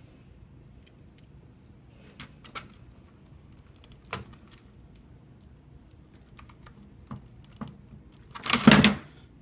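Scattered small clicks and taps of time clock parts being handled and fitted during assembly, then a louder clatter lasting about half a second near the end.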